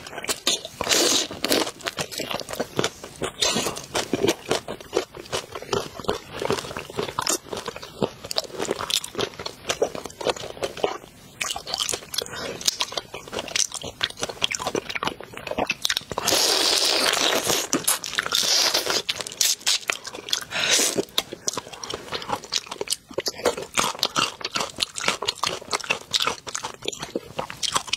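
Close-up crunching and chewing of whole spicy shrimp, the shells cracking between the teeth in many quick, sharp crunches, with a louder unbroken stretch of about three seconds a little past the middle.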